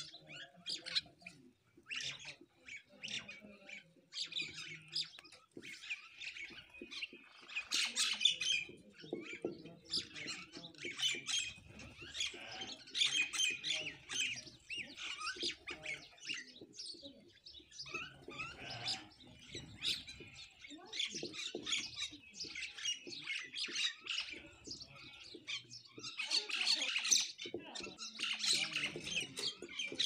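A feeding flock of common mynas and house sparrows calling, with sparrow chirps and myna calls overlapping in clusters that rise and fall. The calls are loudest near the end.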